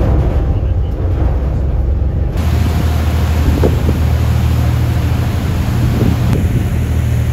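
Tour boat's engines running with a steady low drone. About two seconds in the sound cuts from inside the cabin to the open stern deck, where the drone is joined by wind buffeting the microphone and the rushing of the churning wake.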